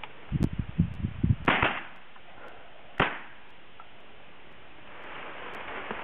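Two shotgun shots about a second and a half apart, the first and louder one amid a string of low thumps.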